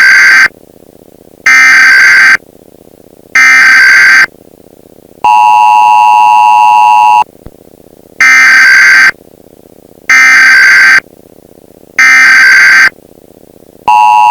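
Emergency Alert System test tones: three digital data bursts of about a second each, then a steady two-tone attention signal for about two seconds. Three more data bursts follow, and the two-tone starts again near the end.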